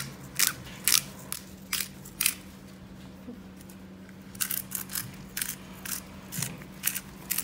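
Hand-twisted pepper mill grinding black peppercorns, a run of short grinding clicks about two a second. The clicks stop for about two seconds near the middle, then start again.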